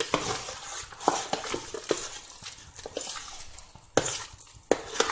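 Thick moong dal batter being mixed by hand in a stainless steel bowl, wet stirring broken by irregular sharp knocks against the bowl, as a little water is worked in to thin it.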